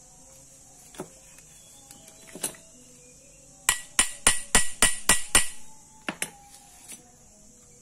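Hammer tapping on metal angle grinder parts during reassembly: a few single knocks, then a quick run of about seven sharp metallic taps at about four a second, then a couple more knocks.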